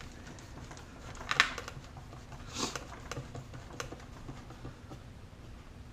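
Tiny screws being driven into a plastic marker-light housing: scattered small clicks and scrapes, with a sharper click about a second and a half in and a brief scrape a little later.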